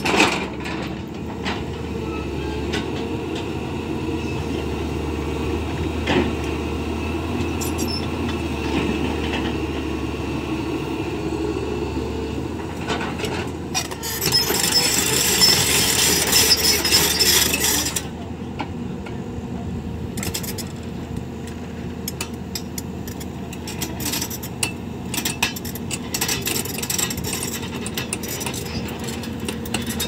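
Hitachi crawler excavator's diesel engine running steadily as the machine digs and levels soil. About halfway through there is a louder rushing noise lasting around four seconds, and short knocks and clunks come through the rest.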